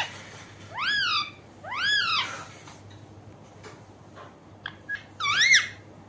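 Rose-ringed parakeet calling: two rising-then-falling calls about a second apart, then a couple of short chirps and another call near the end.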